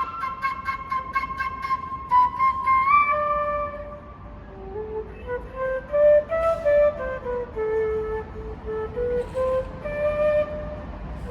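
A flute playing a melody: a long high note near the start, then a slower phrase moving through lower notes. A faint low hum sits underneath.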